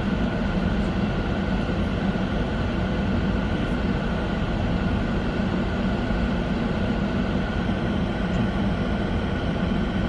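Steady engine and tyre noise of a moving vehicle, heard from inside its cabin as it drives along a road.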